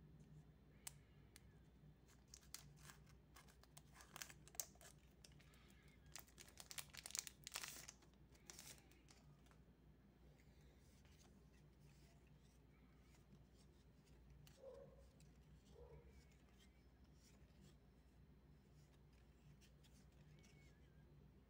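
Foil wrapper of a Magic: The Gathering Lord of the Rings set booster pack being torn open and crinkled: a run of sharp crackles over the first eight seconds or so, loudest about seven seconds in.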